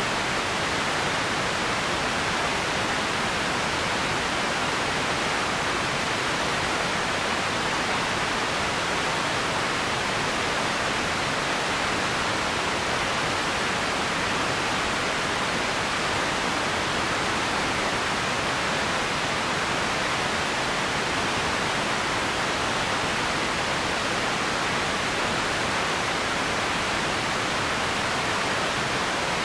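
Steady empty-ambience noise, an even hiss strongest in the middle range, with no distinct events and no change in level.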